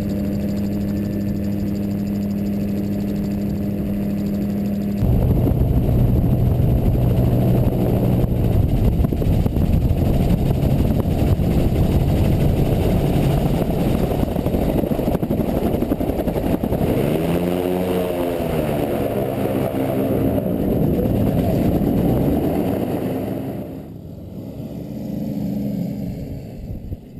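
A gyroplane's flat-four Rotax engine and pusher propeller, heard from an onboard camera with wind rushing over the microphone. The engine pitch sags and recovers several times as the throttle is worked on approach and landing. Near the end the sound drops away sharply as power comes off for the rollout.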